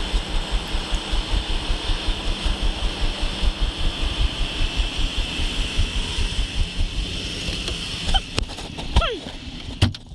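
Truck running: a steady, pulsing low rumble with a constant hiss. Near the end it thins out, and a few short squeaks and sharp clicks follow.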